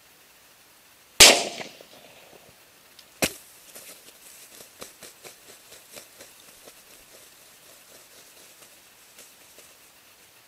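Two shotgun shots about two seconds apart, the first loud with a long fading echo and the second quieter. A run of faint, irregular ticks and rustles follows.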